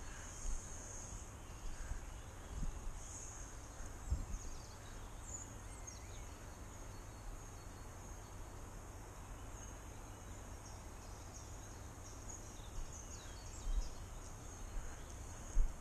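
Quiet spring woodland ambience: scattered bird chirps over a steady high hiss, with a few soft low thumps as the handler walks with the body-worn camera.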